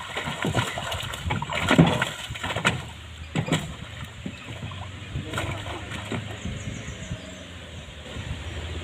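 A large fish thrashing in a hand net at the water's surface, splashing in several sudden bursts, the biggest about two seconds in, then settling to lighter sloshing.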